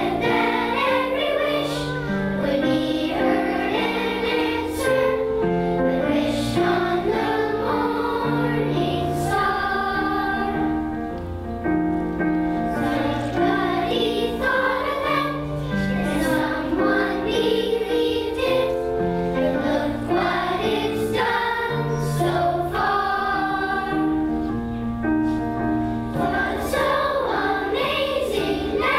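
A children's choir singing a song with instrumental accompaniment.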